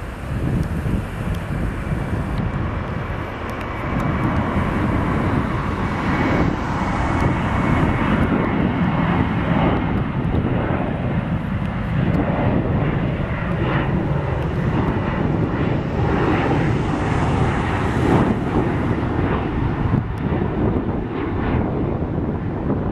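GE C36-7 diesel-electric locomotive running steadily, a deep continuous rumble that gets louder about four seconds in.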